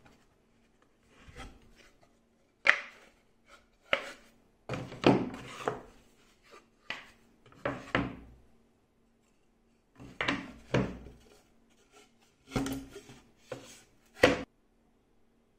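Plywood boards being set down, picked up and slid against each other on a cutting mat: about ten sharp wooden knocks with short scrapes between them, over a faint steady hum.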